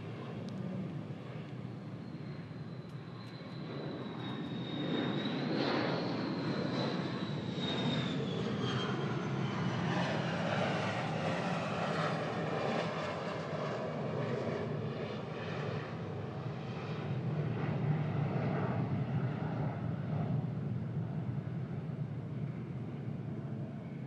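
Military aircraft flying past: a high whine over a wide engine rumble, the whine dropping in pitch as the aircraft passes, and the rumble staying loud before easing near the end.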